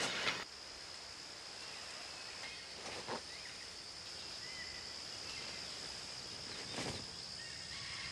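Steady high-pitched trilling of insects in grassland, with a few brief rustles of grass and clothing.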